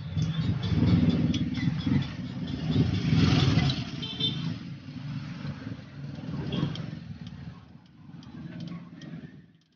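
A motor vehicle's engine running close by, a low rumble that is loudest in the first few seconds and fades away in the second half. Faint light metallic clicks of hand work on the brake caliper come through near the end.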